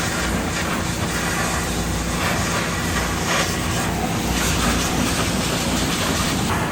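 Engine-driven pressure washer running steadily, its high-pressure spray hissing against a machine and swelling and fading as the wand sweeps.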